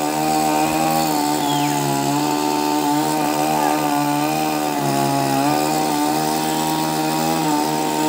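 Chainsaw engine running steadily at high speed while cutting in a tree, its pitch dipping briefly a few times.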